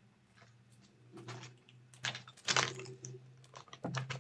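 Light clicks and clatters of small dice dropping and being gathered up on a desk, in short uneven clusters.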